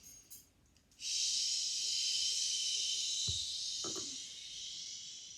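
A person making a long 'shh' sound on a slow out-breath, starting about a second in, lasting about four seconds and fading near the end. A soft low bump sounds briefly in the middle.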